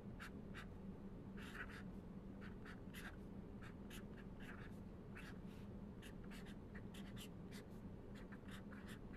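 Pen writing on paper: quiet, irregular short scratching strokes, over a faint steady low hum.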